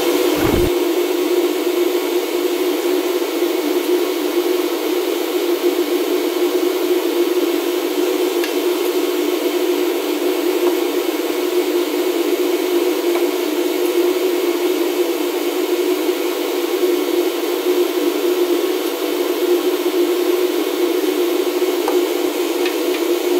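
Steady air rush and fan hum of a fume hood's extraction fan, running at an even level. There is a brief knock just after the start.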